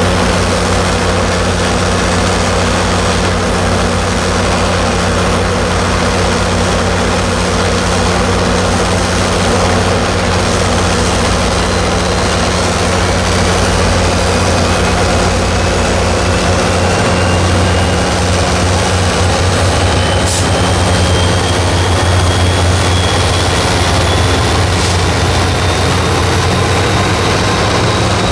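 MARC commuter train's diesel locomotive running with a steady low engine drone, then pulling out. From about halfway a faint whine rises steadily in pitch as the train gathers speed.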